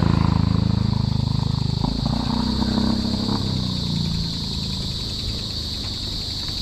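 A motor vehicle's engine passing close by, its pitch falling as it goes past and fading away after about four seconds, over a steady high insect buzz from crickets.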